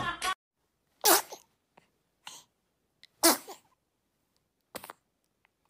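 Two loud sneezes about two seconds apart, each a sudden burst that drops in pitch, with a few faint breaths or clicks between.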